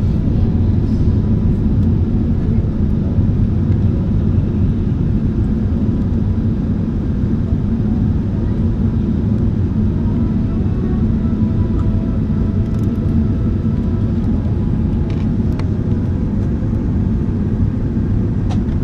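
Airliner cabin noise: a steady low rumble of jet engines and rushing air.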